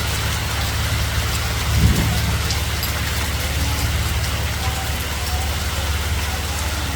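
Hail coming down hard, a dense patter of many small impacts over a low rumble, with one louder thump about two seconds in.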